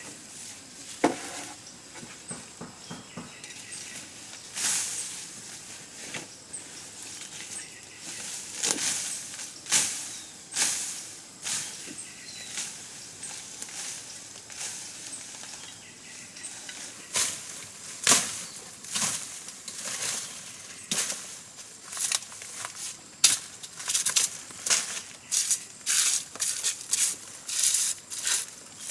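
Leaves, grass and stems rustling and snapping as a person pushes through dense undergrowth, in irregular crackles that come thicker and faster in the second half.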